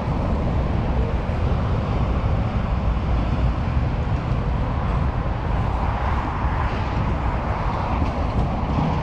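Wind buffeting an action-camera microphone outdoors: a steady low rumble with a hiss of open-air background noise over it.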